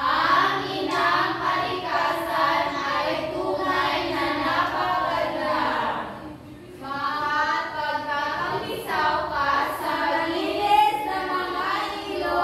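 A class of young voices singing together in unison, pausing briefly about six seconds in and then going on.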